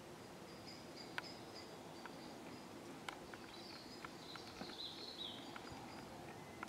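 Faint scuffling of European badgers moving at a sett entrance: two sharp clicks, about a second in and about three seconds in, then a patter of small ticks. A brief high chirping call comes in the middle.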